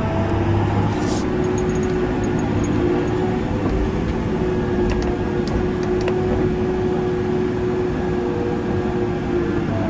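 Tracked tractor's diesel engine running steadily under load as heard inside the cab, a constant drone with a held hum. A few faint clicks come about five to six seconds in.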